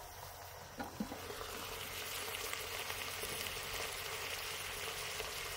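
Deer sausage and onions sizzling steadily in a pot on a camp stove, a little louder from about a second in, with two light knocks as the glass lid is lifted off.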